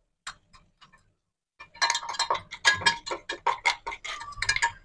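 A metal utensil clinking against a metal pot: a few separate taps, then from about a second and a half in a quick run of clinks with a slight ring.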